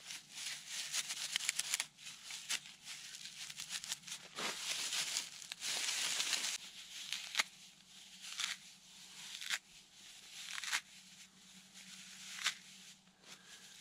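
Dry tree bark being torn and rubbed apart by hand into fine tinder fibres. A dense crackling rustle for the first several seconds gives way to single crisp rubs about once a second.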